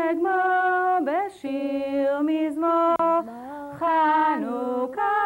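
A single female voice singing a Chanukah song unaccompanied, in slow, held notes that glide from one pitch to the next.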